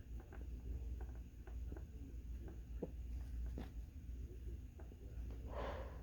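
Quiet gap between sneezes: faint, scattered small clicks and rustles over a steady low hum, then a short breathy sniff near the end from a congested nose.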